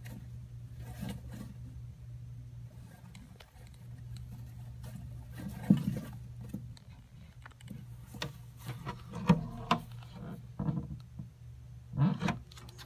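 Savannah monitor shaking a mouse in its jaws, scraping and knocking through loose substrate: scattered rustles and sharp knocks, the loudest a few times in the second half.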